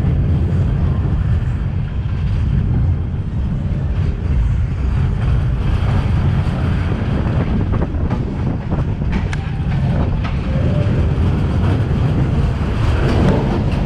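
Small roller coaster train running along its track, heard from on board: a steady low rumble with a few sharp clacks in the middle.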